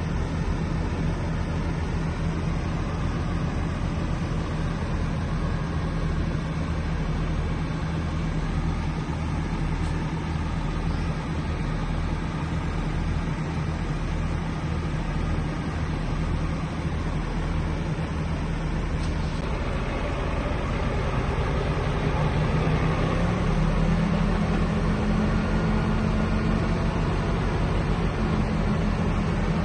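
Heavy diesel engine of earthmoving machinery running steadily, then revving up to a higher, steady speed about two-thirds of the way through.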